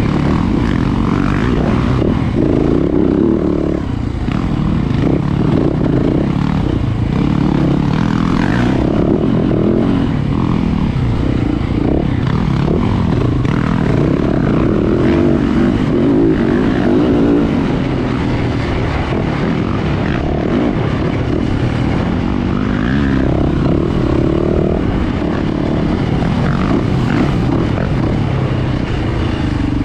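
Yamaha YZ450F dirt bike's 450 cc single-cylinder four-stroke engine running hard under a riding rider, revs rising and falling constantly as it is throttled through the woods loop.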